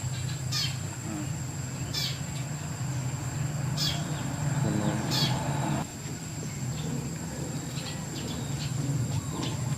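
Short, high animal chirps, about four of them spaced a second or two apart, over a steady low hum.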